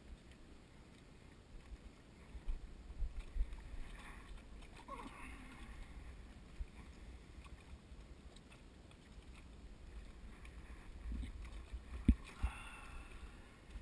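Small waves lapping against a dock, with wind rumbling on the microphone in gusts. There is a single sharp knock about twelve seconds in.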